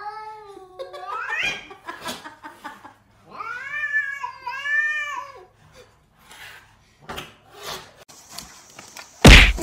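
A cat yowling: a drawn-out call that rises near the start, then a longer wavering yowl in two swells a few seconds in. A loud sharp thump comes just before the end.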